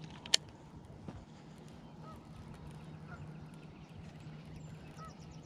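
A cast with a baitcasting reel: one sharp, loud click about a third of a second in, then a quiet retrieve with two faint short calls in the background.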